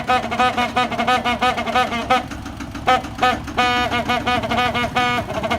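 Horn of a Kubota tractor, which sounds like a big truck's horn, tooted in many quick short blasts with a few longer held ones around the middle, over the tractor's engine running low underneath.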